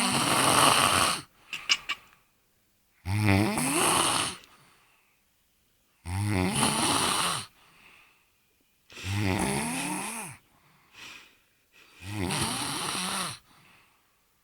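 A man snoring loudly in a steady rhythm: five long, rasping snores, each about a second and a half, coming roughly every three seconds.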